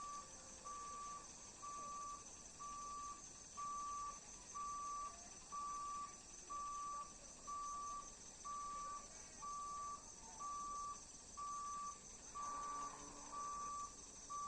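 Railway level-crossing warning beeper sounding a single steady tone, about one beep a second, as the gate warns of an approaching train.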